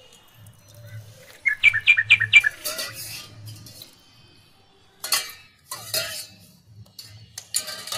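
A bird giving a quick run of about six chirps about a second and a half in, followed by scattered short clatters typical of kitchen utensils.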